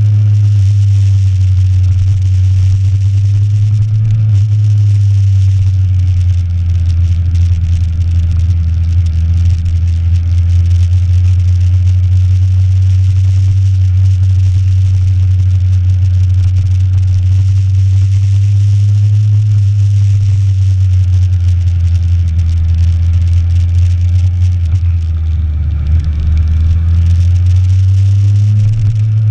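Motorcycle engine running steadily during a ride, a low hum whose pitch shifts slightly now and then, with noise over it.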